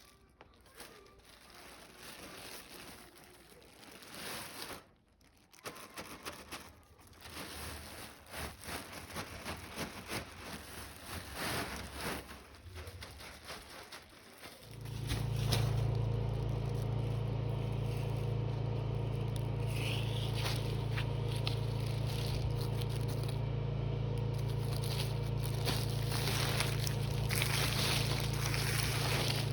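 Dry rustling and crackling, like something brittle being handled. About halfway through, an electric motor starts with a steady low hum and keeps running evenly.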